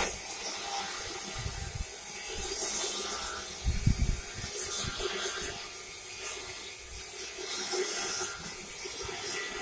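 A flat steel plate being handled and fed between the rolls of a manual plate rolling machine, giving a few dull knocks; the loudest comes about four seconds in. A steady hiss runs underneath.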